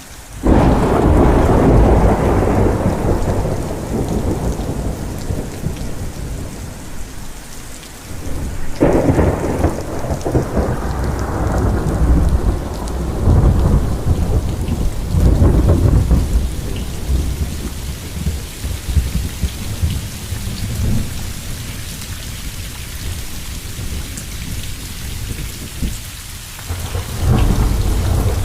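Heavy rain falling steadily, with rolling thunder. A loud rumble breaks in suddenly at the start, several more peals swell and fade through the middle, and another comes near the end.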